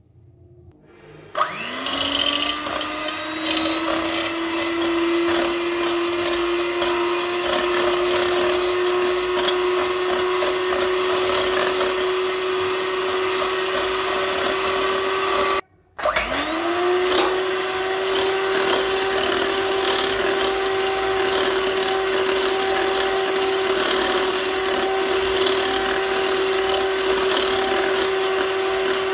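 Electric hand mixer whipping cream in a glass bowl. The motor starts about a second in with a rising whine that settles into a steady hum, stops briefly about halfway, then starts again and runs steadily.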